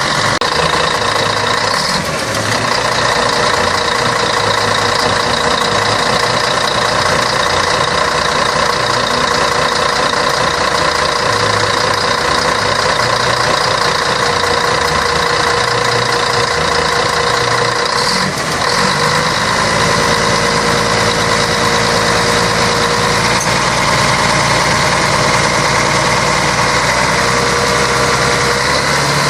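Scania K113 bus's diesel engine running steadily, with two brief dips, one about two seconds in and one about eighteen seconds in.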